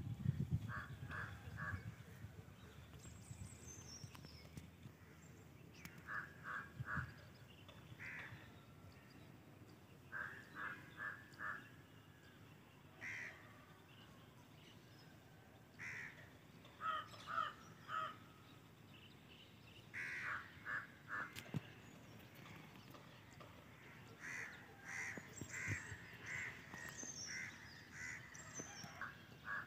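Crows cawing faintly, in quick runs of three or four short calls every few seconds, with a few higher bird chirps in between.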